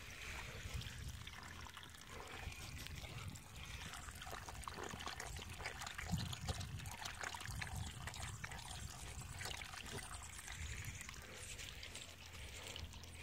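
Water trickling from the open end of a black poly irrigation tube onto bare dirt, with a dog lapping at the puddle around the middle.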